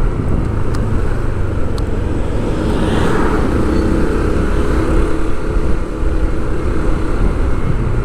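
Steady road-vehicle engine and traffic noise with a heavy low rumble, swelling briefly about three seconds in.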